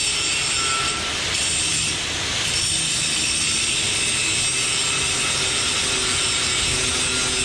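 Angle grinder grinding steel, taking the tips off a bracket on a concrete boom pump's pipe mount. It runs steadily, easing off briefly about one second and two seconds in.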